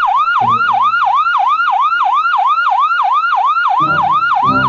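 Electronic emergency-vehicle siren on a fast yelp, its pitch swooping down and back up about four times a second, steady and loud.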